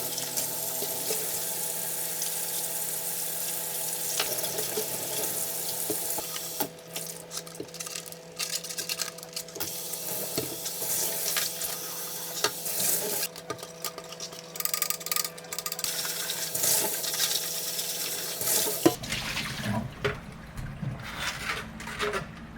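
Water running from a kitchen tap into a sink. It flows steadily at first, then breaks up into uneven splashes from about six seconds in as things are rinsed under it, over a faint steady hum.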